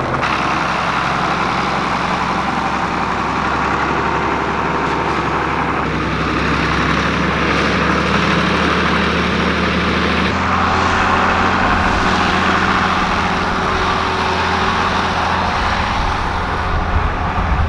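Farm tractor engine running steadily while driving a field sprayer, with a hiss above it. The engine note shifts slightly about six seconds in and again about ten seconds in.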